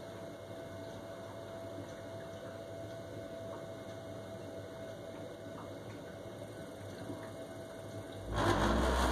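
Worcester Bosch 29CDi Classic combi boiler humming steadily, then about eight seconds in a sudden loud, deep rumble breaks out as the gas fires inside. This is the boiler's fault rumble, which ends in the EA error code.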